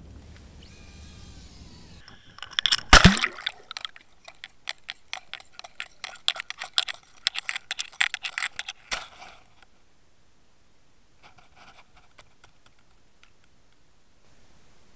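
Underwater recording: a loud splash about three seconds in, then a dense run of sharp clicks and crackles for about six seconds as gear knocks and settles on a gravel riverbed, fading to a faint hiss.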